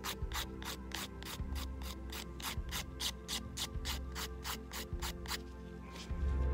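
Nail file rasping back and forth over an artificial stiletto nail in quick even strokes, about four a second, stopping about five and a half seconds in.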